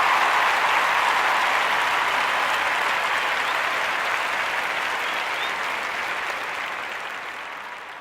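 Audience applauding, the clapping fading out gradually toward the end.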